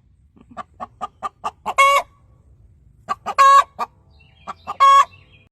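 Hen cackling: a quick run of about seven clucks leading into a long drawn-out squawk, then two shorter rounds of two or three clucks, each ending in the same long squawk.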